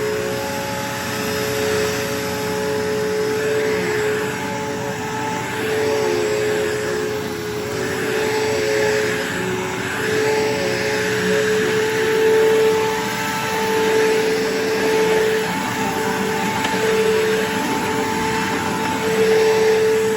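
Bissell vacuum cleaner running while vacuuming a sandy porch floor: a steady motor whine over airflow hiss, its pitch wavering slightly as it is pushed about.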